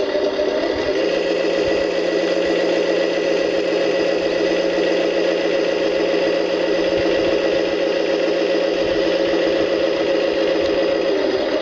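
Electronic sound module of a Tamiya Scania RC truck playing a diesel engine sound through its small speaker. The engine runs steadily, with a small change in tone about a second in and again near the end.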